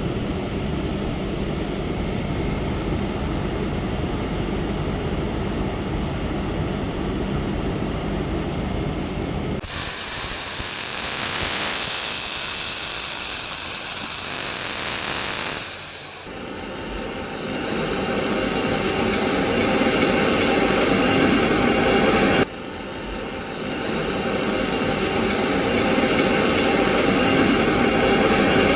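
A steady mechanical hum, broken about ten seconds in by some six seconds of loud, even hissing, after which a steady hum returns and drops off abruptly once before building again.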